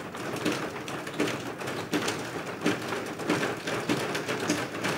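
Assembly members thumping their desks in approval: a dense, uneven patter of many knocks.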